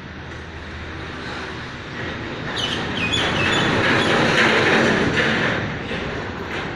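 A rattling, mechanical running noise, much like a rail vehicle, that builds up, is loudest in the middle and eases off near the end, with a few short high squeaks a little over halfway through.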